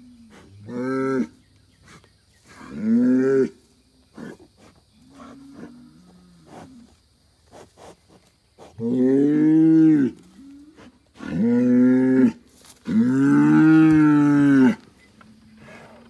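Young Angus bull bellowing: five loud, drawn-out bellows, the last three longer and closer together, with softer low moans between them. This is the bellowing of an agitated bull.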